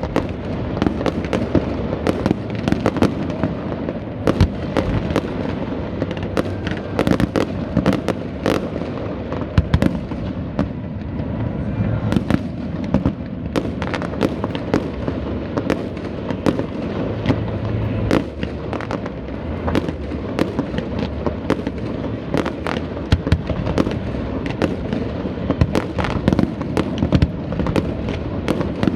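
Fireworks display: a continuous run of sharp bangs and crackles, several a second, over a steady low rumble.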